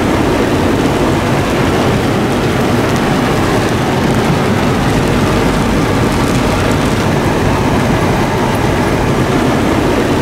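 Heavy rain falling on a car's roof and windshield, heard from inside the cabin, mixed with the vehicle's engine and tyre noise on the wet road. The noise holds steady throughout.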